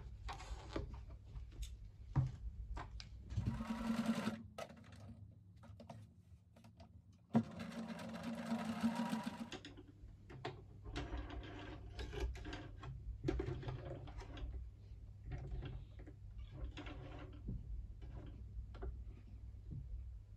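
Singer electric sewing machine running in two short bursts, the first about a second long and the second about two seconds, a steady motor hum with rapid stitch ticking. Between and after the bursts come scattered small clicks and rattles of the machine and fabric being handled.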